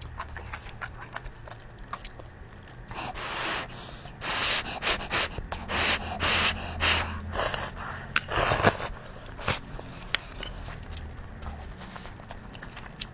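A person slurping spicy instant noodles off chopsticks in a run of noisy pulls between about 3 and 9 seconds in, with small mouth clicks before and after.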